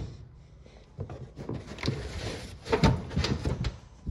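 Rustling and knocking of loose items being handled and pulled out of a hatchback's boot, starting about a second in.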